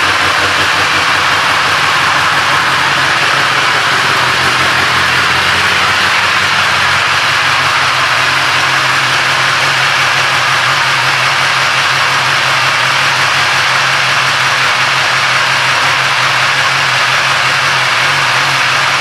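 2018 BMW S 1000 R inline-four engine idling steadily through its aftermarket Akrapovič exhaust.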